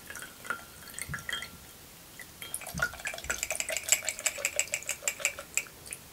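Liquid from a jar of home-canned chicken liver trickling and dripping into a small glass bowl, with light clinks of a metal fork against the glass jar. The drips grow into a quick, dense patter about halfway through, then stop near the end.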